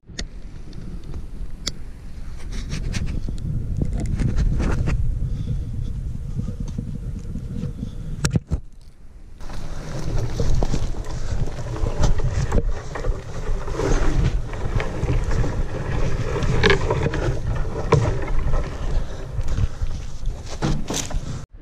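Wind buffeting the microphone as a steady low rumble, with scattered sharp knocks and clicks; the rumble drops away briefly near the middle.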